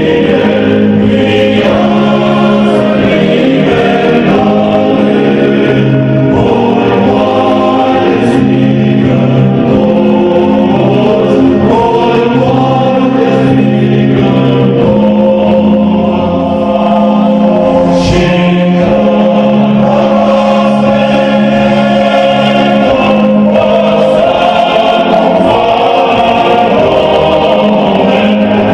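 A choir singing a slow, hymn-like song over long-held low notes.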